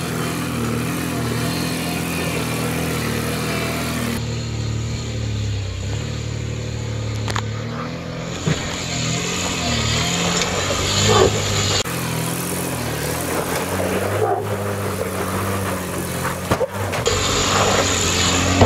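Toyota Landcruiser 80 Series engine working under load as the 4x4 crawls up a rock step, its revs rising and falling.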